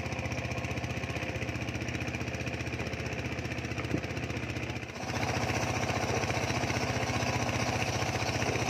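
Small boat engine running steadily with a fast even chugging, a little louder from about five seconds in.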